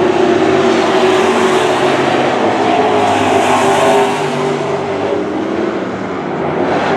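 Super truck racing engines running hard on a dirt oval, several engine notes at once with tyre and road noise. The sound is strongest for the first four seconds, eases off about five to six seconds in as the trucks move away, then builds again near the end.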